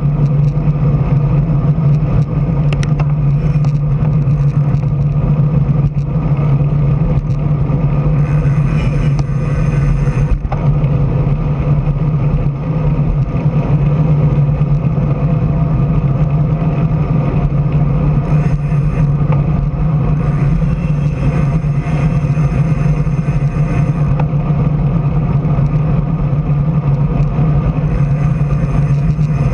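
Steady drone of a motor vehicle's engine at cruising speed with wind and road noise, and other cars passing now and then.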